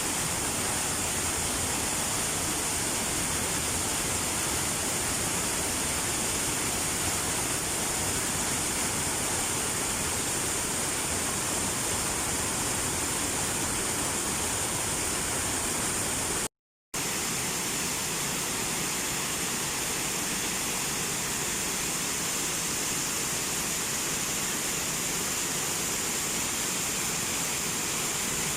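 Steady rushing of flowing water. It cuts out to silence for about half a second a little past the middle, and after that the low rumble is weaker.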